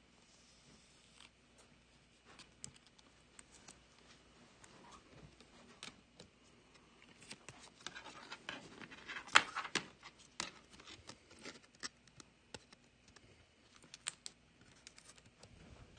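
A trading card being slid into thin plastic card sleeves and handled: soft plastic rustling and scattered light clicks, busiest around the middle, with the loudest crinkle a little past halfway.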